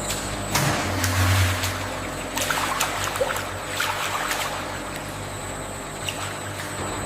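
Steady machine hum with washes of hissing and a few sharp clicks; the hum is loudest about a second in.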